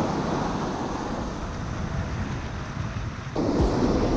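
Ocean surf breaking and washing up the beach, with wind buffeting the microphone. The sound changes abruptly about three seconds in.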